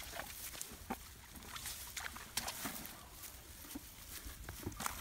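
Irregular rustling and crackling of tall grass stems brushed aside by people walking through them, with a few soft knocks of plastic buckets being handled near the end.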